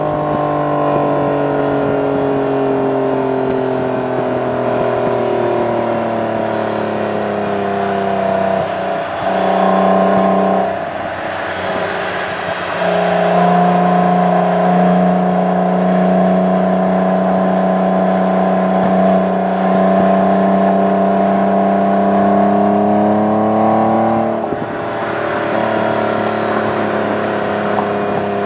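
Exhaust note of a 1998 Acura NSX-T's V6 through a GT lightweight exhaust, heard from the rear bumper while driving. It is a steady, droning note whose pitch slowly sinks at first and then slowly climbs for about ten seconds. The note dips briefly about ten seconds in and again near the end.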